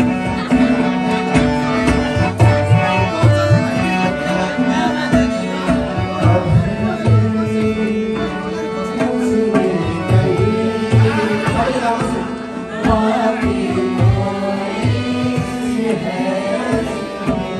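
Live South Asian song: a man singing over a harmonium's held reed chords, with a hand drum such as tabla keeping a steady beat.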